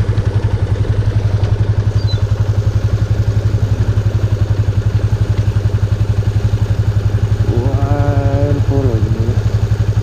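Motorcycle engine idling with a steady, rapid thumping beat. About eight seconds in, a brief pitched tone rises, holds and falls away.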